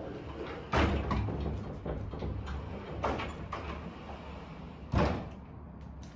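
A door being shut with a sharp knock about a second in, then smaller knocks and handling, and another sharp knock near the end.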